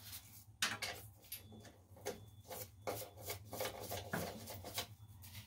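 Work-gloved hand handling a metal electrical breaker panel: an irregular string of small rubs, scrapes and clicks, the sharpest about half a second in.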